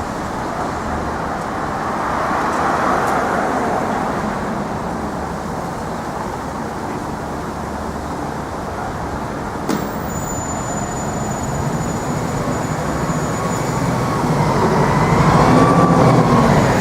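City street traffic: a steady rush of passing vehicles, swelling as one vehicle passes early on and louder again near the end as an engine passes close. There is one sharp click about ten seconds in.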